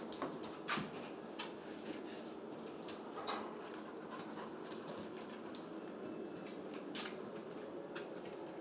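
A young pit bull terrier moving about on a hard floor: a handful of short, light clicks and taps scattered over a steady low hum.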